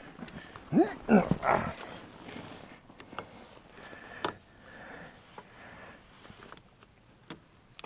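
A man grunting with effort three or four times about a second in, straining to turn a stuck part with locking grips, then one sharp click a little past the middle.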